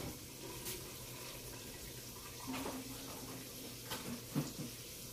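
Faint steady hum with a few soft clicks and knocks, one about a second in and two near the end, as items are moved about in an open refrigerator.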